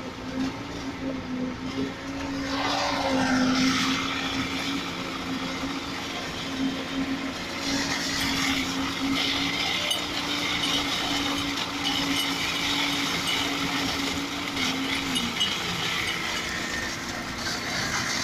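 Diesel engine of a concrete pump truck running steadily at one pitch, with a rougher hissing noise joining in about two and a half seconds in.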